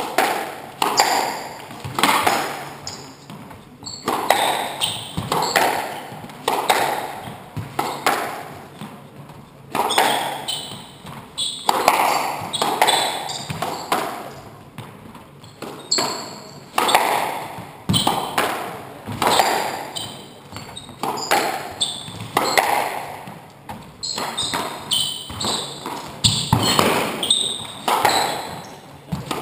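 Squash rally: the hard rubber ball struck by the rackets and slapping off the court walls, a sharp echoing pop every second or so. The walled court makes each hit ring briefly.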